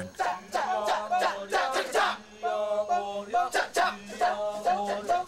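Kecak chant by a male chorus: rapid interlocking shouted "cak" syllables over a steady low held vocal tone, with a sustained sung chord near the middle.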